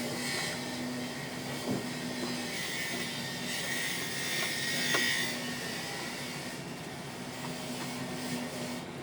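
Steady mechanical whooshing noise with a low hum that comes and goes, and two short clicks.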